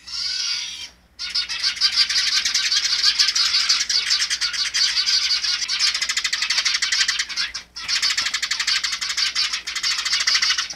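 Sparrows chirping in a dense, fast, unbroken chatter of short high notes, pausing briefly about a second in and again near 7.5 seconds.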